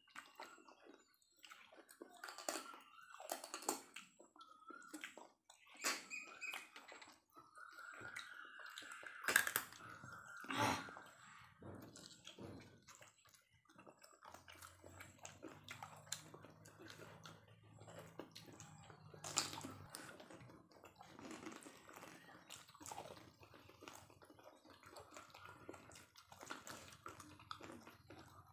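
Several people eating with their hands: close chewing and wet slurping of curry, with many small clicks and smacks.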